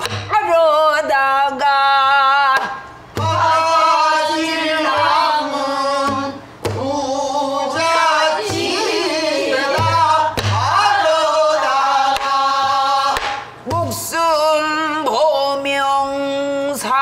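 Pansori singing by a woman: long drawn-out phrases with wide vibrato, broken by brief breaths. She keeps time with scattered strokes on a buk barrel drum.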